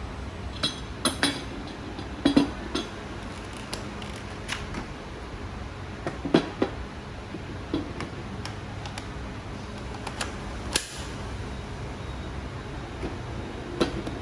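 Cordless power tool and its parts being handled: scattered sharp clicks and knocks of hard objects, a dozen or so, over a steady low hum.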